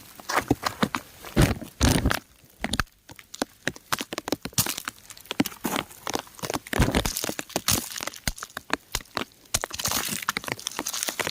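Raindrops pattering on crumbling rock close to the microphone: a dense, irregular run of sharp taps and cracks, with a few louder low thuds.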